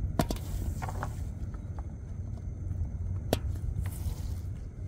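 A gill net being pulled into a small boat: two sharp knocks, one about a second in and one near the end, with brief rustling over a steady low rumble.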